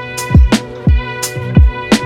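Background music: a beat of deep kick drums that drop in pitch, with sharp high hits over held chords.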